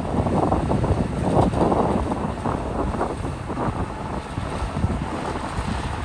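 Komatsu D61PX bulldozer's diesel engine running, with wind buffeting the microphone.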